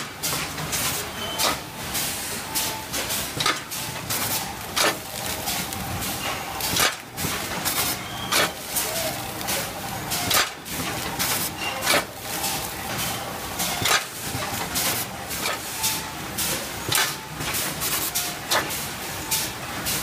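Rollbag R2300 automatic bagger running continuously, with sharp clacks and rattles from its air-driven actuators and from sugar packets dropping through the steel hopper into the bags. The loudest clacks come about every one and a half to two seconds over a steady machine noise.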